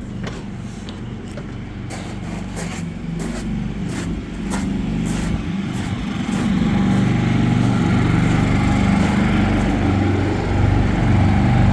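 Two Predator 3500 inverter generators running in parallel, a steady engine hum that grows louder about six seconds in and again near the end. They are carrying the load of two air conditioners.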